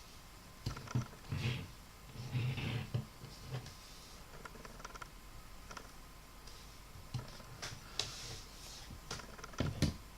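Scattered light clicks and knocks of small diecast model airplanes being handled and set down, with a few soft low thumps in the first three seconds.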